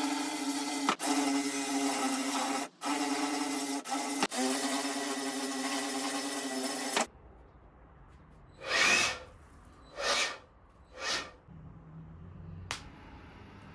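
Power drill running at a steady pitch, with the trigger let off briefly several times, then stopping about seven seconds in. Three short swishing sounds and a single click follow.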